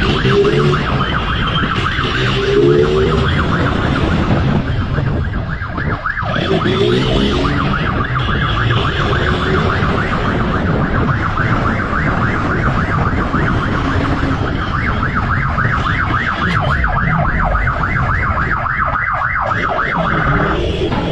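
Siren on the pursuing motorcycle sounding a rapid yelp, several sweeps a second, over the motorcycle's engine and wind rush.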